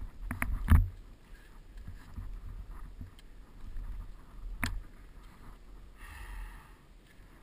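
Skis running through deep powder snow, a low rumbling swish, with a quick cluster of sharp knocks about half a second in and another single knock about four and a half seconds in.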